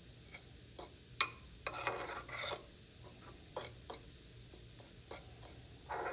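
Steel spoon stirring dry spice powders in a terracotta bowl, scraping and rasping against the clay in repeated strokes, with one sharp clink about a second in.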